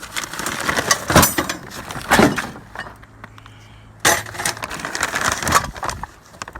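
Small pieces of scrap metal and hardware clattering and clinking as they are handled and tossed into a garbage can, with a few louder crashes, the loudest about a second in and about two seconds in.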